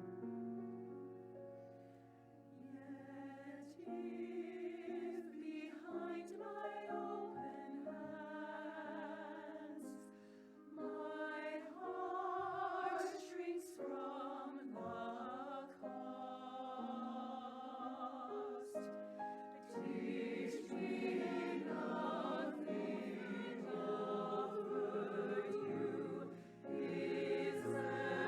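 Choir singing a hymn or anthem with a held keyboard accompaniment.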